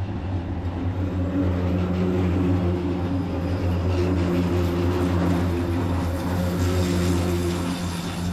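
Stuttgart Stadtbahn light-rail train (SSB DT8) passing close by: a steady low hum from the electric traction drive, with higher motor tones that step up and down in pitch, over the rumble of steel wheels on rails.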